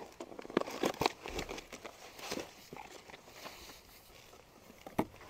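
Cardboard boxes and packing material being handled while a package is unpacked: scattered light rustling and small clicks, with a sharper tick about five seconds in.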